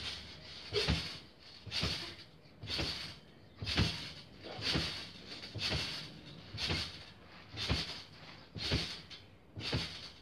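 Trampoline mat and springs thudding and creaking with each bounce, in a steady rhythm of about one bounce a second.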